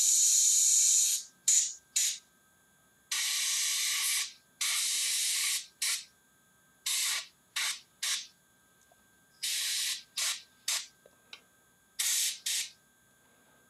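Airbrush spraying thinned paint in about a dozen on-off bursts of hiss, from quick puffs to pulls of about a second and a half, with near quiet between them.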